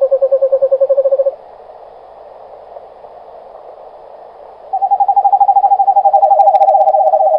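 Owl calling: a rapid trilled call, then a pause, then a second, longer trill from about five seconds in, a little higher in pitch and dropping slightly near the end.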